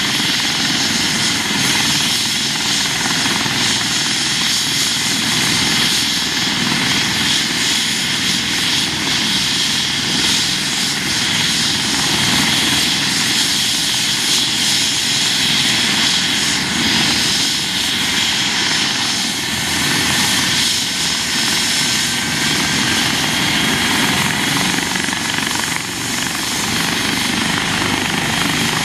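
Airbus (Eurocopter) EC135 P2 helicopter running on the ground, its twin turboshaft engines giving a steady whine over the whir of the turning main rotor and the shrouded fenestron tail rotor. The level holds even, with no spool-up or lift-off.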